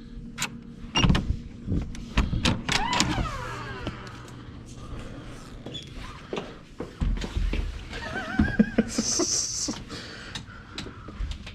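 A run of clicks and knocks, as of a hotel room door being unlocked and opened, with short squeaky gliding sounds about three seconds in and again about eight seconds in.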